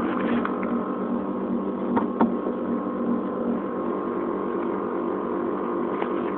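Steady mechanical hum from the air-bagged Infiniti G35, with two short clicks about two seconds in.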